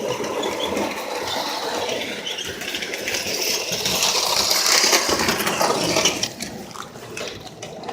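Large-scale model train (a New York Central locomotive) running on its track, with wheels clattering over the rails and the motor whirring. It gets louder in the middle, as if passing close, then fades quickly after about six seconds.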